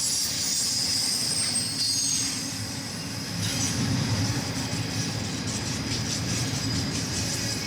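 Freight train cars rolling past: a steady low rumble of wheels on the rails, with thin, high wheel squeal coming and going over it.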